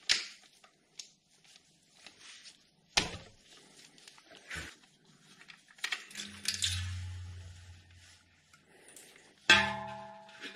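Sump plug being undone and pulled from an aluminium engine oil pan with a socket and by hand: scattered knocks and clicks of the tools, then oil starting to pour into a plastic drain pan as a faint hiss. A sharp metallic clink with a short ring comes near the end.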